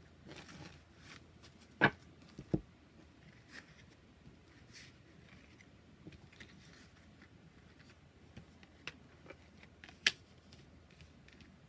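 Oracle cards and their packaging being handled: soft rustling with a few sharp taps, the loudest two close together about two seconds in and another near the end.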